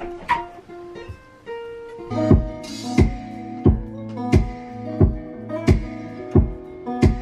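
Music: a plucked-string melody, joined about two seconds in by a steady beat of kick drum and deep bass, about three kicks every two seconds.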